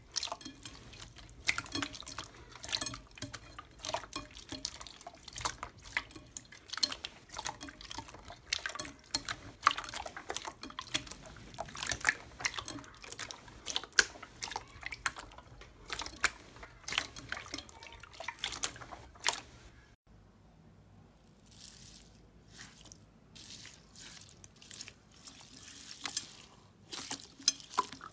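Hands squeezing and pressing very runny clear slime in a bowl, making wet squelching with many sharp sticky clicks and pops. About 20 s in it turns quieter, with sparser pops.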